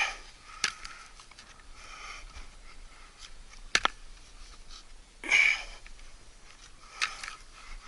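A person breathing hard while crawling, with a few sharp clicks and knocks from the movement; the loudest breath comes about five seconds in.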